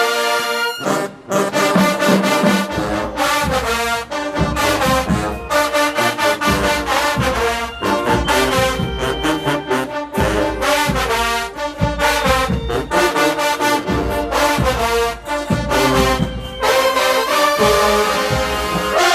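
HBCU marching band playing: the brass section plays stacked chords over drumline and bass drum hits. A held chord cuts off about a second in before the full band comes in, and near the end the drums drop out, leaving the horns holding chords.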